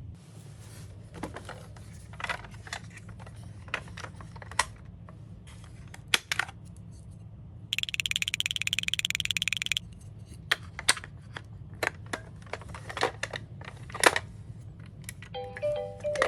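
Small plastic and die-cast toy cars being handled and set down, making scattered clicks and clacks. About eight seconds in comes a buzzing whirr that lasts about two seconds.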